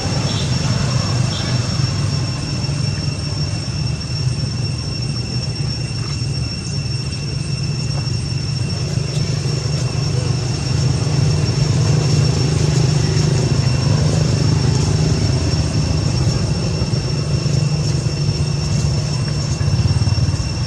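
A steady low rumble with a constant thin high-pitched whine over it.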